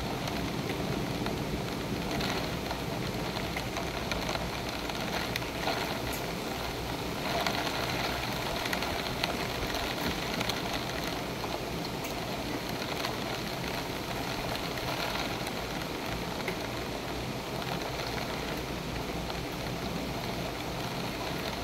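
Rain falling in a thunderstorm: a steady hiss with many fine ticks of drops, swelling briefly a few times, most strongly about seven seconds in.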